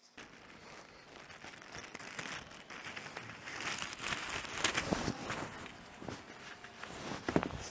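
Irregular crunching footsteps on beach stones, a dense crackle of small ticks growing louder.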